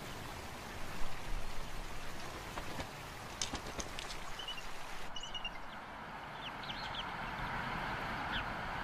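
Steady outdoor hiss from the nest's open-air recording, with a few faint, short, high bird peeps in the middle and later part.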